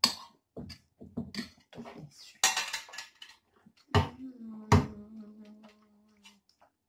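A metal spoon scraping and knocking against a stainless-steel pot as cooked rice is spooned out of it. About four seconds in, two knocks set the pot ringing with a clear tone that fades over about two seconds.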